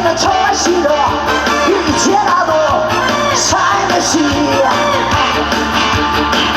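Live trot song: a woman singing a bending, melismatic melody over amplified backing music with a steady beat.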